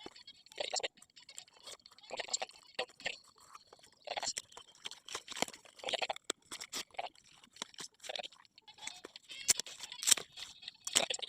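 Strips of young coconut leaf crinkling and rustling in short, irregular crackly bursts as they are woven and pulled tight into a ketupat.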